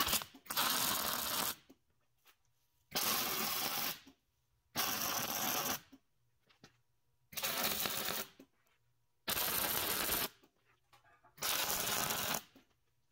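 Electric arc welding steel pipe to steel plate: six short welds of about a second each, with pauses between, typical of tacking parts in place.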